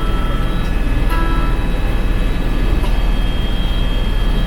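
Helicopter engine and rotor running steadily in flight, heard from inside the cabin: a loud, even drone with a strong low hum and faint steady whining tones above it.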